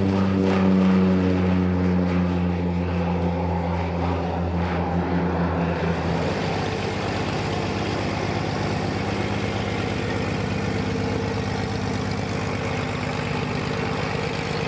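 Propeller aircraft engine running with a steady drone. The tone is strongest in the first six seconds, then turns rougher and more even.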